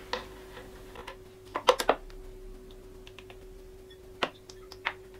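Light clicks and taps of a metal measuring cup and plastic oil bottle being handled over a stainless-steel mixing bowl while oil is poured, a small cluster of them about one and a half seconds in and single taps later. A faint steady hum lies underneath.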